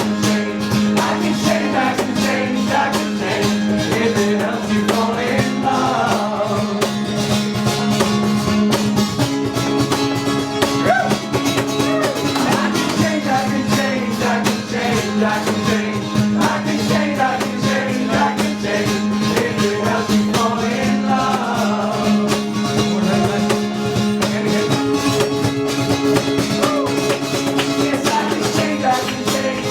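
Live band music: guitar strumming over sustained low chord notes that change every few seconds, with a wavering melody line on top.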